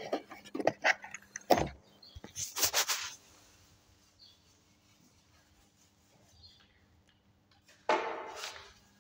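A run of knocks and clatter for about three seconds, then near quiet with a faint steady hum, then a short, loud, rough burst of noise about eight seconds in.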